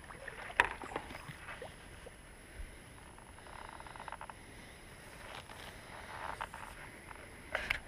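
Scattered small clicks, knocks and rustles of a freshly landed bream being handled, over faint outdoor background noise.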